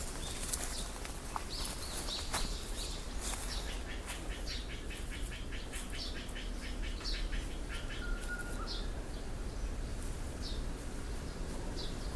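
Birds chirping outdoors: scattered short, high calls, with a fast trill of evenly repeated notes through the middle, over a steady low background hum. A few sharp clicks sound in the first seconds.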